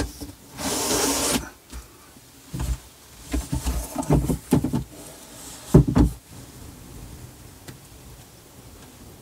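A sharp click, then a short sliding rasp, followed by a run of dull knocks and bumps over a few seconds, as things are opened and handled.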